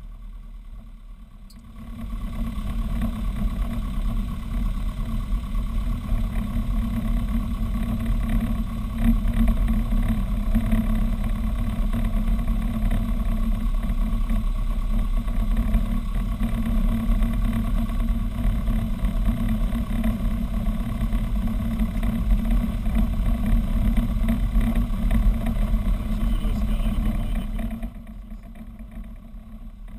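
Robin DR400 light aircraft's piston engine and propeller heard from inside the cockpit, running steadily at taxi power as the plane rolls along the runway. The engine gets louder about two seconds in and quieter again near the end.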